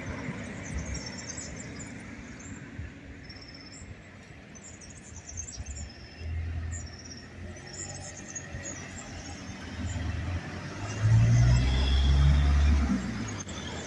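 Street ambience: a car passes with a low engine and tyre rumble, loudest about eleven seconds in. High, short bird chirps come and go.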